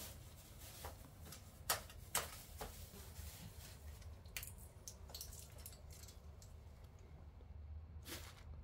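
Scattered light taps and clicks, about half a dozen spread irregularly, over a faint low rumble.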